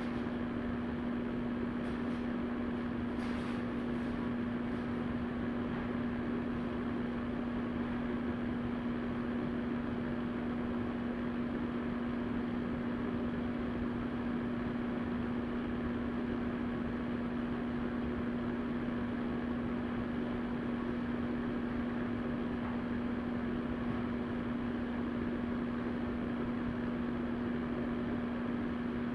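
Vornado VMH300 electric fan heater running: a steady rush of blown air with a constant hum from its fan.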